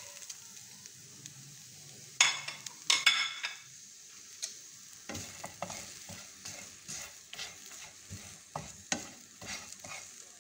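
Vegetable strips frying in a nonstick pan with a faint steady sizzle. There are two louder bursts of noise about two and three seconds in. From about five seconds in, a wooden spatula stirs and scrapes across the pan in quick repeated strokes.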